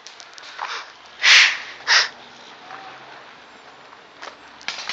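Footsteps crunching on gravel, broken about a second in by two loud, short hissing bursts half a second apart, the first the longer.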